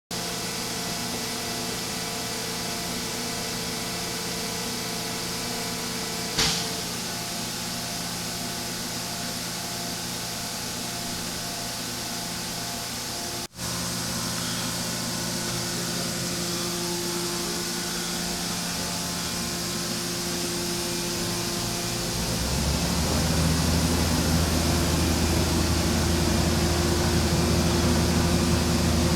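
Mazak Nexus 510C CNC vertical machining center running under power: a steady mechanical hum with several held tones. There is a short hiss about six seconds in, and a louder low hum comes in about three-quarters of the way through.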